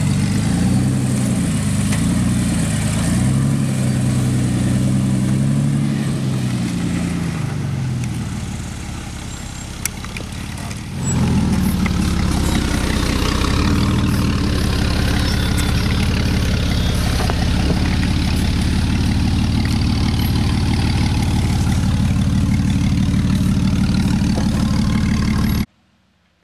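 Jeep TJ engine revving up and down as it crawls over rocky trail, easing off about eight seconds in, then running steadily and loud close by from about eleven seconds until the sound cuts off abruptly near the end.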